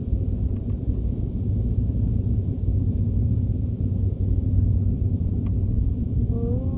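Steady low rumble inside the cabin of a jet airliner taxiing towards the runway: the engines running at low taxi power and the wheels rolling over the taxiway.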